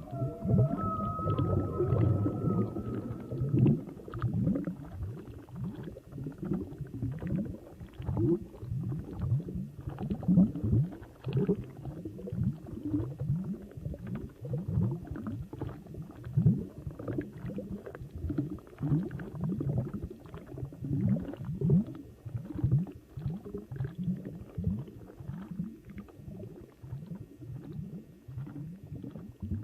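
Underwater recording: a dense run of short, low gurgling and rumbling pulses, several a second. A thin, high, call-like tone fades out in the first few seconds.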